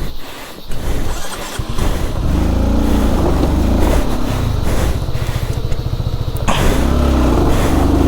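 Honda CBR150R's single-cylinder engine running and being revved, its pitch rising and falling from about two seconds in, with a short dip about six and a half seconds in.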